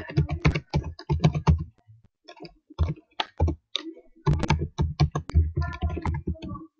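Typing on a computer keyboard: quick runs of keystrokes with short pauses between them, as a search term is entered.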